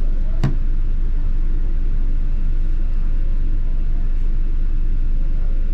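Steady low rumble of a London double-decker bus running, heard inside the bus, with one sharp knock about half a second in.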